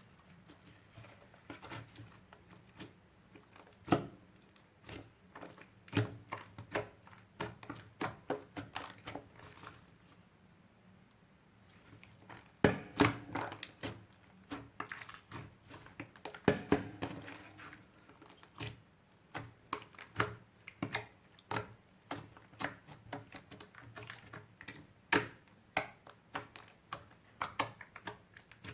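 Clear glitter slime being squeezed, stretched and folded by hand, giving irregular sticky clicks and pops in quick clusters, with a short lull about ten seconds in.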